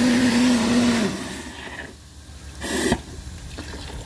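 Live-steam lifting injector on a fire-tube boiler being started, steam blowing through it with a loud hiss and a steady low hum. The hiss dies away about a second in, a short sharp burst comes near the three-second mark, and a softer hiss follows.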